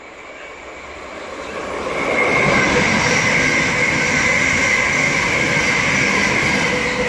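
Thameslink Class 700 electric multiple unit passing through a station at speed: a rush of wheels on rail that builds from about a second in, with a steady high whine over it, then starts to fade near the end.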